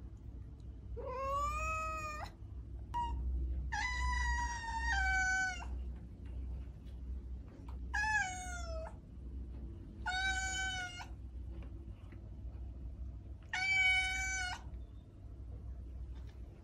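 Domestic cat meowing repeatedly: five drawn-out meows a second or two apart, some rising and then falling in pitch, the second one longer with a drop partway through.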